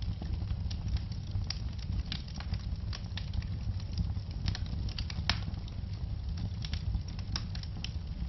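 Wood fire crackling, with irregular sharp pops and snaps several times a second over a steady low rumble of flame.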